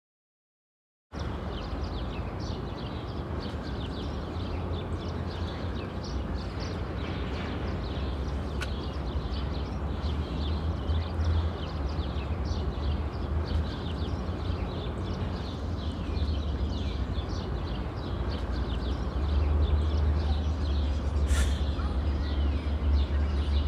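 City park ambience: a steady low rumble of distant traffic, with small birds chirping throughout. A short rustle comes near the end.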